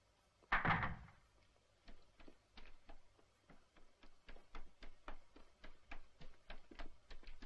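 A heavy wooden door is pushed shut about half a second in. It is followed by a child's quick, light footsteps on stone paving, about three to four steps a second.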